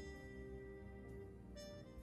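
Quiet instrumental film score: held notes that change now and then, slowly fading.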